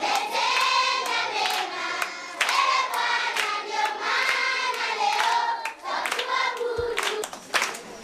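A group of children singing together, clapping their hands along with the song.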